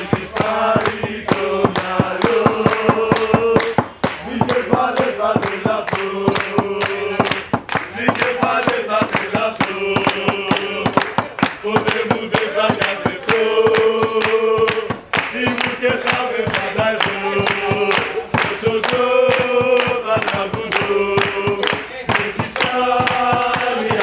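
A group of men singing a Greek football supporters' chant in unison, with steady rhythmic hand-clapping to the beat.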